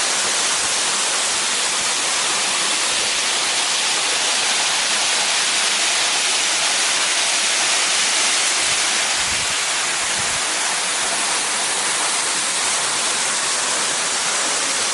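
Steady rush of water from a waterfall, an even, constant hiss with no breaks.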